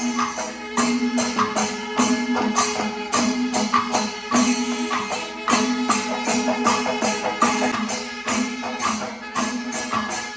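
Music: quick, regular metallic percussion strikes with drums over a steady held tone, in the manner of a Kerala temple percussion ensemble.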